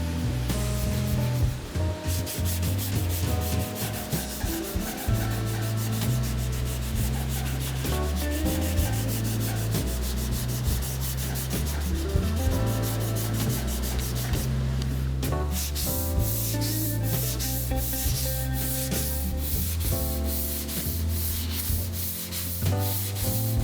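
Sanding of primer and filler on the steel hood of a 1948 Chevy, heard as steady rubbing, over background music with a changing bass line.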